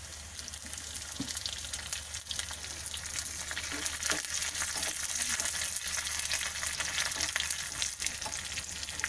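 Curry leaves and browned onions sizzling and crackling in hot oil in a small tempering pan, stirred with a steel spoon. The spluttering grows louder about halfway through.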